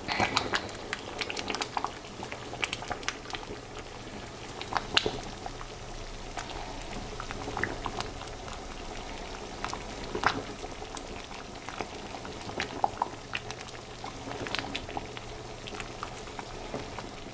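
Pot of red beans simmering, the thick liquid bubbling and popping irregularly while a spoon stirs through it.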